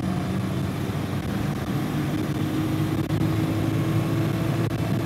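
Turbocharged gasoline engine converted to run on diesel, running steadily as the car drives, heard up close from over the open engine bay. Its exhaust resonator has been cut off.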